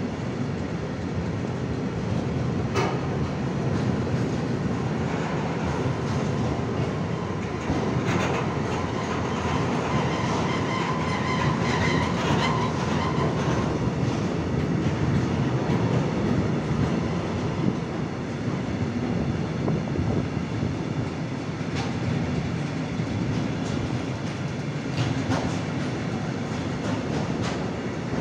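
Freight train of tank wagons rolling past close by: a steady rumble of wheels on rail, with an occasional knock as wheels pass over rail joints and a faint wheel squeal for a few seconds near the middle.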